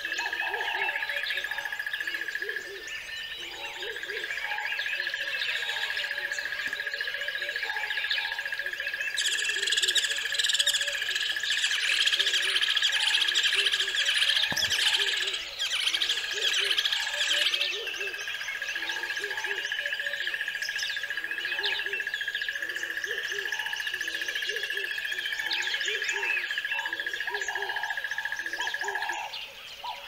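A chorus of wild birds chirping and singing, livelier in the middle, with short low hoot- or coo-like calls repeating underneath and a steady high-pitched whine held behind them.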